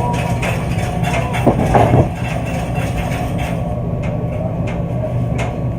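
Laundromat washers and dryers running: a steady low hum and rumble with scattered knocks and clatter, loudest about one and a half to two seconds in.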